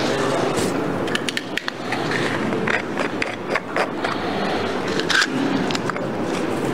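A run of scattered sharp clicks and rattles over a steady murmur of room noise, like small hard objects being handled and knocked together.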